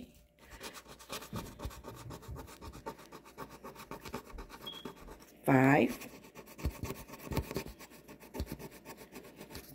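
A coin scraping the scratch-off coating from a paper savings-challenge chart in fast, repeated strokes.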